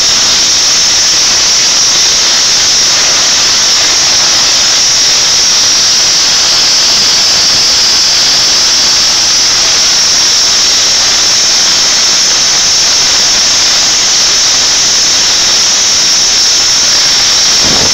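Steam locomotive's safety valves blowing off: a loud, steady, high-pitched hiss of escaping steam, the sign that the boiler is at full working pressure.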